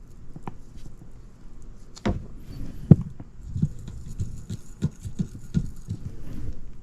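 Scattered light knocks and clicks from hands handling parts during drain work, about a dozen irregular taps with the sharpest about three seconds in.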